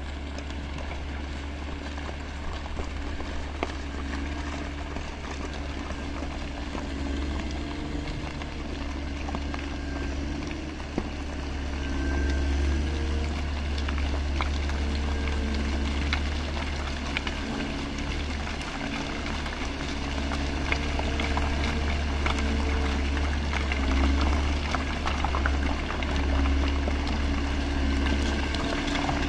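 Caterpillar 140M motor grader's diesel engine running under load, its pitch rising and falling as it works, with many scattered sharp clicks over it.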